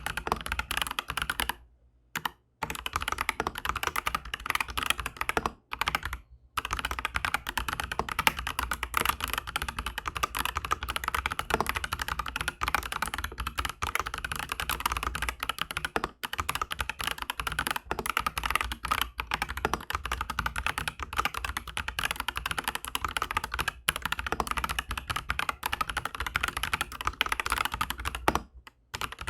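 Continuous typing on an Aflion AF82 mechanical keyboard fitted with Aflion Shadow tactile switches on an FR-4 plate: a dense stream of keystroke clacks, with brief pauses about two seconds in, about six seconds in and near the end.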